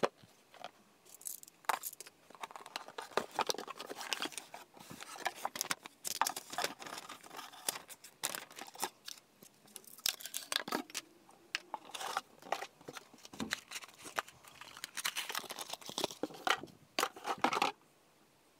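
Cardboard box being opened and a table lamp unpacked by hand: the box and its packaging rustle and scrape, with many small irregular clicks and knocks as the parts are lifted out and the power cord is handled. It stops shortly before the end.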